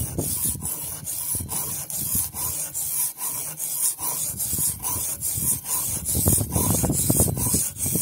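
Butter knife being sharpened on a whetstone: the blade scrapes back and forth across the stone in repeated gritty strokes, with a short pause about three seconds in.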